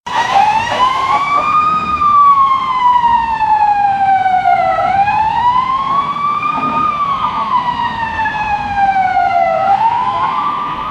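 Fire truck siren wailing, its pitch slowly rising and falling about every five seconds, over a low rumble.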